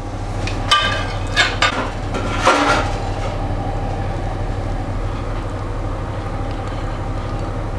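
A metal serving spoon clinking and scraping against a roasting tray and a ceramic plate a few times in the first three seconds as roasted vegetables are spooned out, over a steady low hum.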